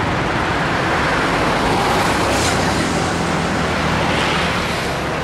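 Cars driving past close by on a city street: a steady traffic rumble that swells about two seconds in.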